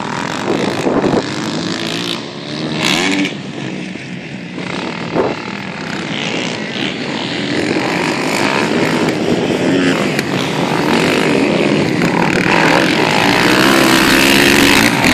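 Motocross dirt bike engine revving up and down as the rider works around the track, getting louder in the second half as the bike comes closer.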